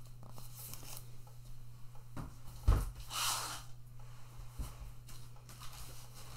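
A box set down with a thump about three seconds in, followed by a short rustle of packaging as she rummages through it.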